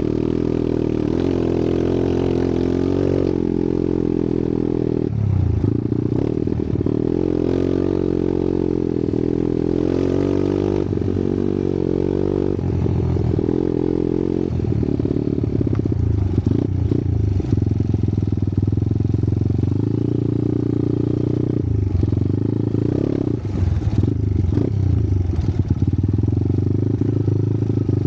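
Dirt bike engine running under way over rough ground, the revs rising and falling as the throttle opens and closes, with brief drops in between. Rattles and knocks from the bike jolting over rocks and ruts come through on top.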